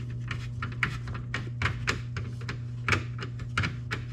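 Hand screwdriver driving a screw into a plastic grille mounting tab, giving quick, irregular clicks and ticks.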